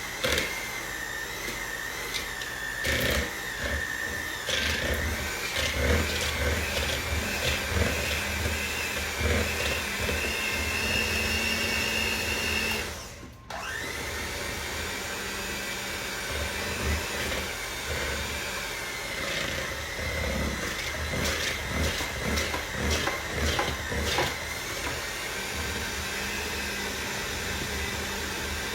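Electric mixer beating butter, cream cheese and powdered sugar into icing: a steady motor whine with irregular knocks and clicks. The motor's pitch rises slightly, then it cuts out for a moment about halfway through and starts again.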